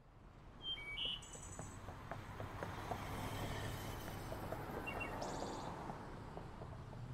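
Outdoor evening ambience fading in: a steady hiss of distant background noise with a few short bird chirps, about a second in and again near five seconds.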